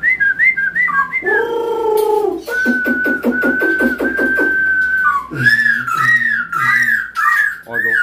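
Black-throated laughingthrush (Poksai Hongkong) singing loud whistled phrases. Quick rising and falling whistles come first, then a held whistle over a rapid stuttering trill, then a run of arched, looping notes near the end.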